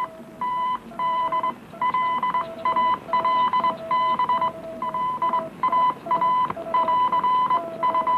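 Morse code radiotelegraph signals heard over a ship's radio receiver: keyed tones beeping on and off in short and long marks, at two pitches, a higher one and a lower one, often taking turns.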